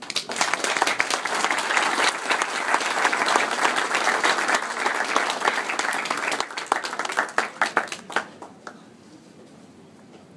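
Audience applauding, starting abruptly, then thinning to scattered claps that die away about eight seconds in.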